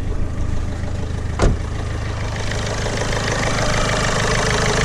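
Ford Fiesta 1.4 TDCi's 1.4-litre four-cylinder turbodiesel idling evenly, steady and no longer misfiring, with one sharp knock about a second and a half in. The engine grows louder and clearer from about halfway through as the open engine bay is reached.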